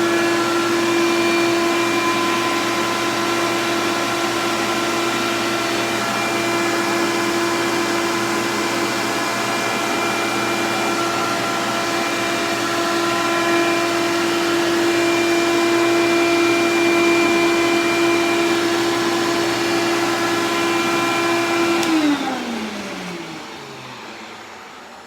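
Vacuum cleaner running steadily with a constant motor tone, then switched off about 22 seconds in, its motor winding down with a falling pitch.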